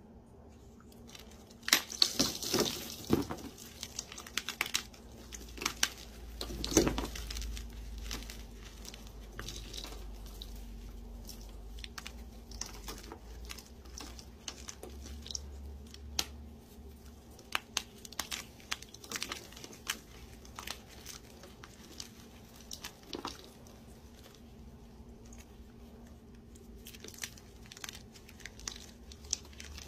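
Dyed chalk blocks crushed and crumbled by hand. Loud crunches break out about two seconds in and again near seven seconds, then a long run of crumbling and grinding with sharp crackles as the blocks fall apart into powder.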